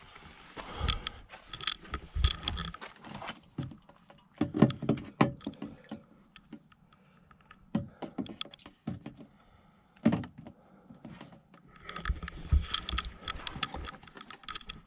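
Handling noises: irregular clicks and knocks of a plastic water jug, shower hose and pump, with tent fabric rustling, busiest near the start and again near the end.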